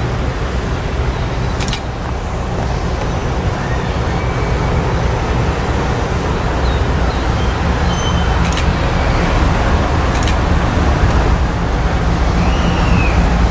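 Approaching diesel freight locomotive, a low steady engine rumble that grows slowly louder, with a few sharp clicks.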